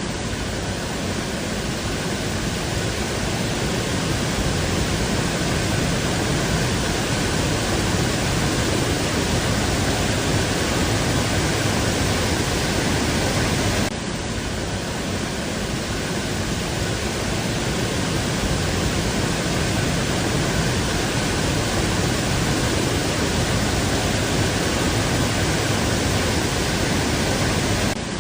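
Waterfall: water falling in a steady, unbroken rush, with a slight dip in level about halfway through.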